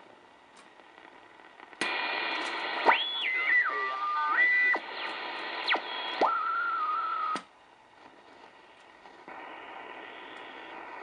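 R-390A tube communications receiver's speaker giving static and hiss as it is tuned across the band. From about two seconds in to about seven seconds in the hiss is loud, with whistles sliding up and down in pitch, before it drops back to a quieter hiss.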